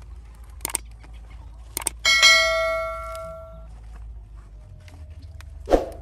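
Subscribe-button animation sound effect: two mouse clicks, then a bright bell ding that rings and fades over about a second and a half. A short thump near the end.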